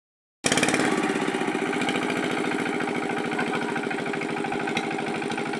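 Engine of a pond-draining water pump running steadily with a rapid, even chugging. It cuts in abruptly about half a second in, after dead silence.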